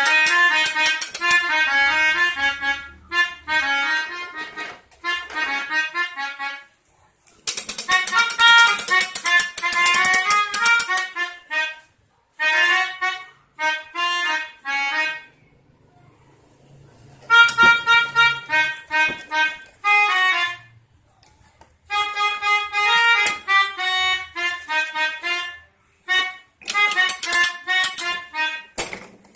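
Toy pianika (melodica) playing the 'telolet' bus-horn tune: quick runs of reedy notes in bursts of a few seconds, with short pauses between them and one longer pause about halfway.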